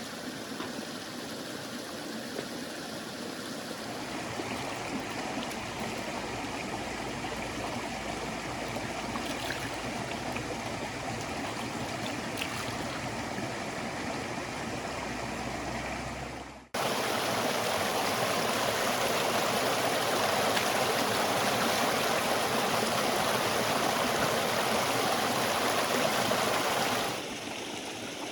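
River water flowing steadily. About two-thirds of the way through, the sound cuts abruptly to a louder, closer rush of water, which drops back to the quieter flow near the end.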